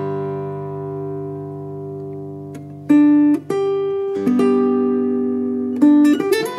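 Background music: an acoustic guitar playing slow plucked notes that ring on, with a short run of notes near the end.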